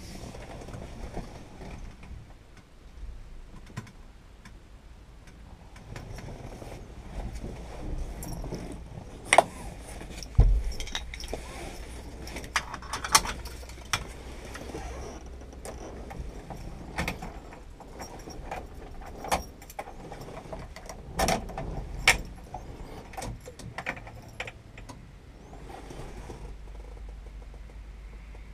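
A bunch of keys jangling in a hand, with sharp clicks and a few knocks scattered through as cabin fittings are handled, over a steady low hum.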